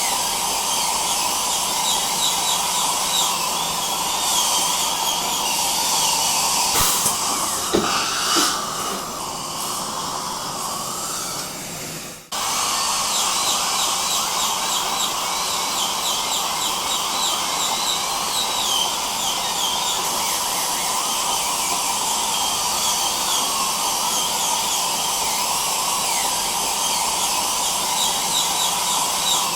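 High-speed dental drill whining with a wavering pitch over the steady hiss of dental suction. About eight seconds in the whine drops away and the sound quietens. It cuts out for a moment about twelve seconds in, then drill and suction resume.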